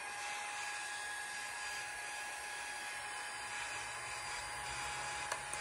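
Silk'n Infinity IPL hair-removal handset running, its cooling fan giving a steady whirring hiss with a thin steady whine, like a small vacuum. Two faint clicks come near the end.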